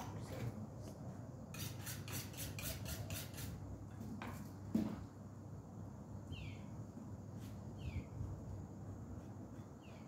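Sheep hide being pulled off a hanging lamb carcass by hand: a quick run of crackling rips for about two seconds, a few single ones and a dull thump. A bird gives a short falling chirp three times.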